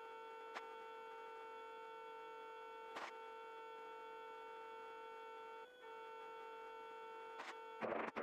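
Faint steady electrical hum in a helicopter's intercom audio feed, with a few faint clicks and a short burst of noise just before the end.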